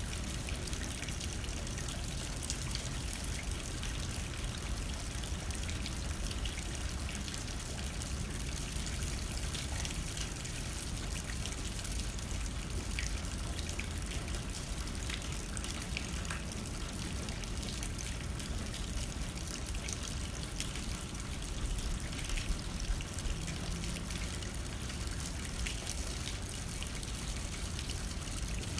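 Steady rain pattering on a window pane, with many small drop ticks over a continuous low rumble of wind.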